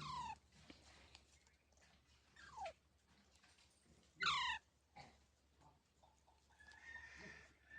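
A parrot calling: three short calls that fall in pitch, the loudest about four seconds in, then a thin steady whistle near the end.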